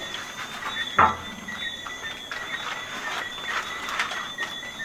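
Steady high-pitched calls of night insects, two constant tones, with a sharp knock about a second in and a few faint clicks.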